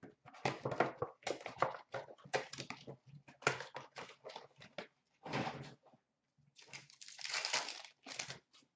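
Foil trading-card pack wrappers being torn open and crumpled by hand, crinkling in a string of short irregular bursts with a longer crumple near the end, over a faint low hum.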